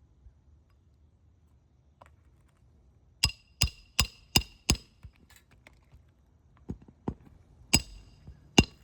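Hammer striking a metal snake tool (shingle unsealing bar) under asphalt shingles to break the shingle seal: five quick blows with a metallic ring about 3 seconds in, then four more, less evenly spaced, near the end.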